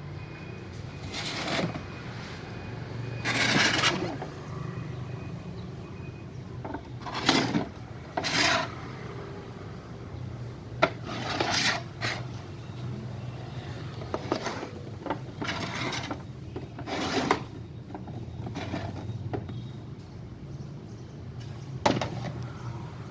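Irregular scraping and rubbing strokes, each under a second, with a few sharp clicks in between, over a steady low hum.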